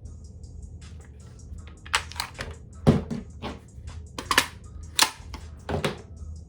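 AR-15 rifle magazines being handled, giving an irregular series of sharp clacks and knocks, the loudest about 3 and 5 seconds in, over a steady low hum.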